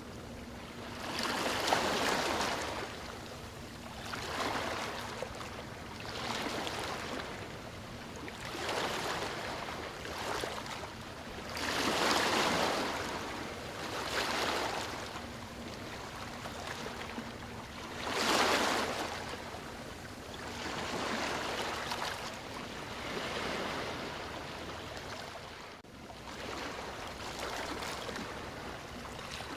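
Sea waves breaking and washing up the shore, rising and falling in surges every few seconds, the biggest about two, twelve and eighteen seconds in.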